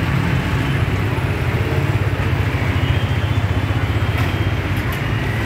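Steady low rumble of road traffic, with a vehicle engine running close by.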